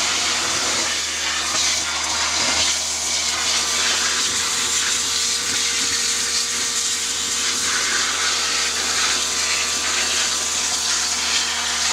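High-pressure water jet from a pressure-washer lance blasting clay out of a rock cavity: a steady, unbroken hiss and spray, with a faint steady hum underneath.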